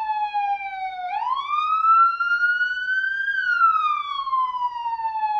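Police car siren wailing: the pitch sinks slowly, sweeps up over about two seconds from about a second in, then falls slowly again through the rest.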